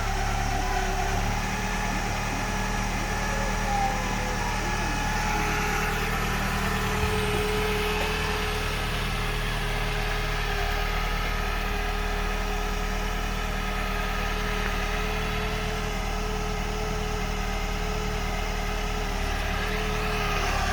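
VW Golf Mk2 with its engine idling, giving a steady drone; a steady higher tone joins the hum about six seconds in. This hum is the noise whose source the owner is trying to find.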